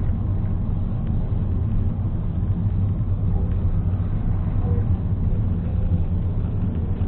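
Steady low rumble of a car's engine and tyres on the road, heard from inside the cabin by a dashcam.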